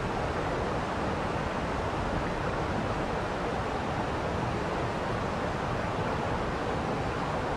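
Steady rushing of a waterfall, an even roar of falling water that does not change.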